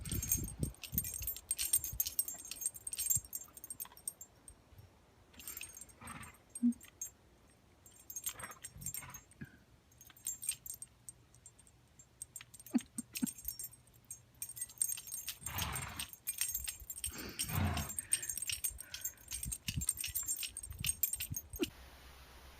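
Small metal pieces jingling in irregular bursts, with a dog's sounds now and then.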